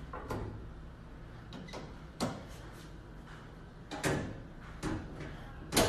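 A car's hood being handled and shut: a handful of short knocks and clunks, the loudest a slam near the end as the hood closes.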